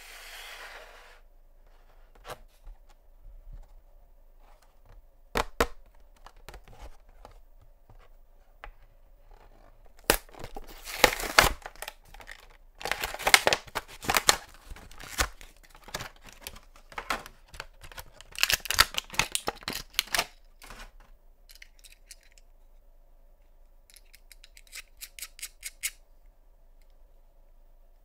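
Hands tearing the cardboard backing off a clear plastic blister pack: crackling tears and crinkling plastic in two long bursts, with scattered clicks before them and a quick run of light ticks near the end.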